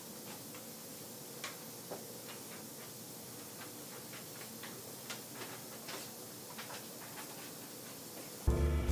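Quiet room hiss with scattered, irregular light clicks and taps. Swing-style jazz music comes in just before the end.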